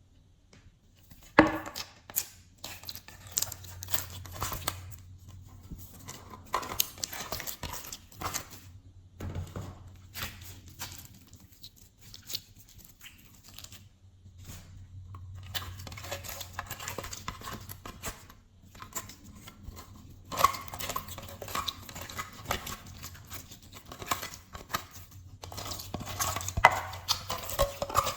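Glossy slime being mixed and kneaded by hand: irregular, dense crackling, popping and squishing, with short pauses between bursts.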